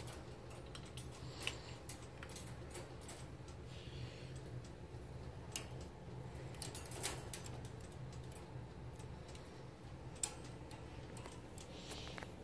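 Scattered light clicks and taps at irregular intervals, with a sharper click about five and a half seconds in and another about ten seconds in, over a steady low hum.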